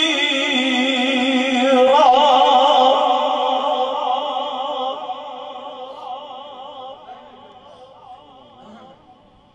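Male qari's melodic Quran recitation (tilawat): a long held note with a wavering pitch and a fresh rise about two seconds in, then fading away over the last few seconds.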